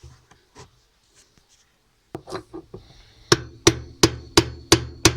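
Hammer striking a chisel set against the washing machine gearbox nut to drive it tight: a few light knocks, then from about three seconds in a steady run of sharp metal strikes, about three a second.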